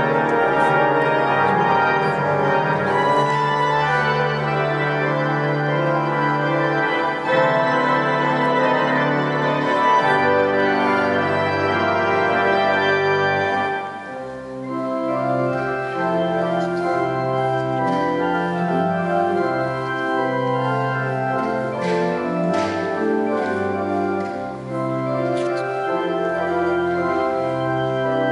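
Organ playing sustained full chords, which thin to a lighter, quieter texture about fourteen seconds in before moving on in shifting chords.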